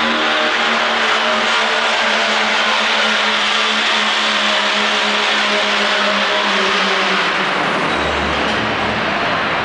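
Dodge Ram pickup's engine running flat out, pulling a weight-transfer sled, its note held steady. About seven and a half seconds in the engine note fades and a low rumble takes over.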